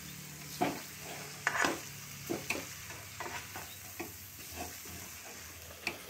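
Perforated metal spatula stirring and scraping fenugreek leaves and masala around a pan, in short irregular strokes, over a faint sizzle of frying on a low flame.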